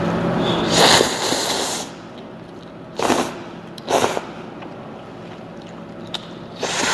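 Cup ramen noodles being slurped: a long, loud slurp for about the first two seconds, then three short slurps, a second or more apart.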